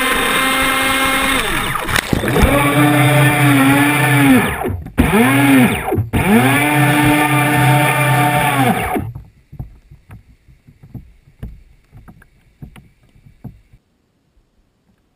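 Pro Boat radio-controlled boat's motor whining at speed, then revving up and down in repeated bursts with a couple of brief dropouts, as the boat capsizes. The motor cuts off about nine seconds in, leaving only faint ticks and water sounds, then near silence.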